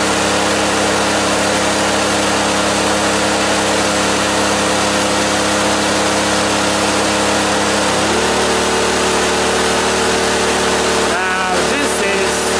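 Honda EU2200i inverter generator's engine running steadily under heavy load, with the rushing hiss of hair dryers. About eight seconds in, the engine's pitch steps up and holds there as more load is switched on, taking it to about 2480 watts.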